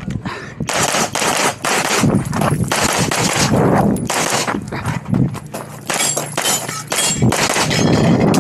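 Red-dot-sighted competition pistol firing rapid strings of shots, heard from the shooter's position. Runs of closely spaced shots are broken by brief pauses as he moves between targets.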